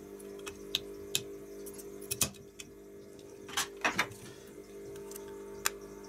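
A few sharp clicks and knocks from desoldering tools: a spring-loaded solder sucker used on the encoder's pins and then set down, the loudest snap a little over two seconds in and a quick cluster of knocks near four seconds. A steady low hum runs underneath.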